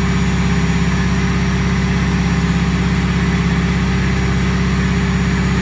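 The homemade mini crane's engine running steadily under load while the crane's hydraulics extend its telescopic boom.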